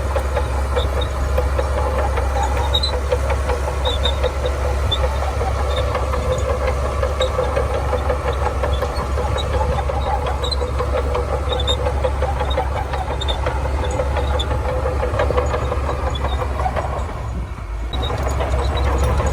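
Shantui bulldozer's diesel engine running steadily under load with a deep drone, faint high ticks over it, dipping briefly about seventeen seconds in before picking up again.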